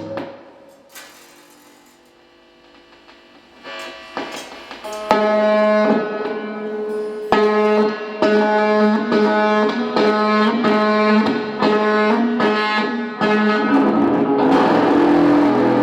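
Electric guitar feedback through a noise effect. After a fade into near quiet and a few scattered hits, a loud, sustained pitched drone pulses on and off about twice a second, then turns into a denser, noisier wash near the end.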